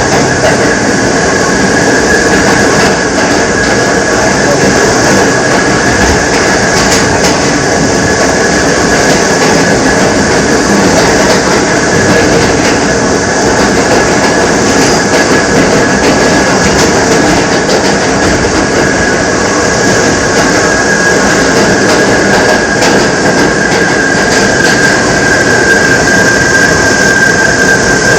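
R68 subway car running at speed, heard from on board: steady rumble of the train with a loud, steady high-pitched howl that drops slightly in pitch near the end.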